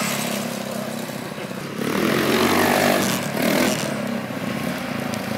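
Small scooter engine running as a scooter rides along the street, getting a little louder about two seconds in.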